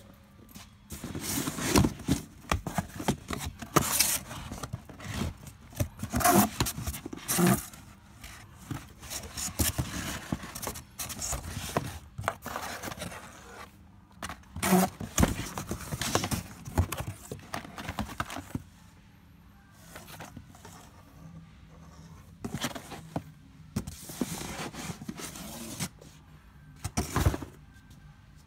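Cardboard boxes and plastic-packaged goods being shifted and rummaged through by hand: irregular scrapes, rustles and knocks, with a quieter stretch past the middle.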